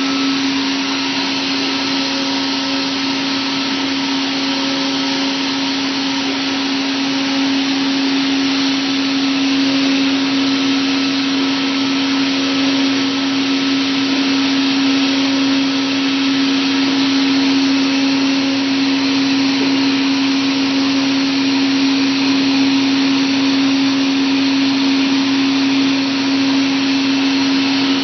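Komo VR510 CNC router running: a loud, steady hum with one strong low tone under an even rush of air-like noise, holding unchanged throughout.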